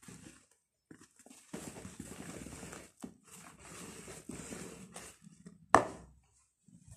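Silicone hand whisk beating thick cake batter in a plastic bowl: two stretches of steady wet, squelching whisking, then one sharp knock near the end as the whisk hits the bowl.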